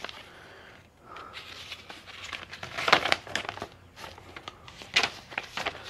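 Paper packaging and an instruction sheet rustling and crinkling as they are handled, with a few sharper crackles about three and five seconds in.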